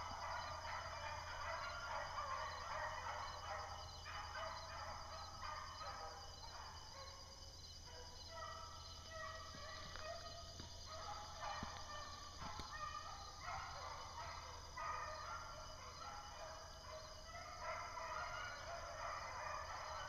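A pack of beagles baying on a rabbit's trail, several overlapping voices giving tongue together, faint and carrying through the woods; the steady chorus means the hounds are on the scent and running the rabbit.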